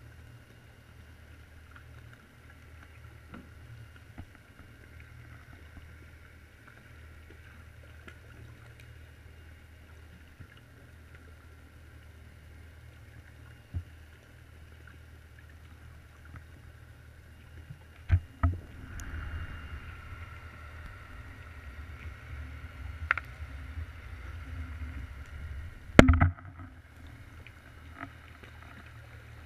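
Underwater sound picked up by a drop camera on the bottom: a steady low hum and faint hiss, with a sharp knock about 14 s in and several more knocks over a louder rumble in the second half, the loudest near the end, as the camera shifts and bumps about.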